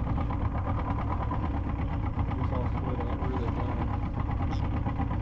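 Boat's outboard motor running steadily at idle.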